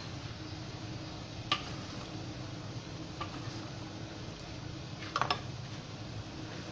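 A spatula stirring a thin sauce in a wok, knocking against the pan with a sharp click about a second and a half in, a lighter one midway and a quick double click near the end, over a steady low hum.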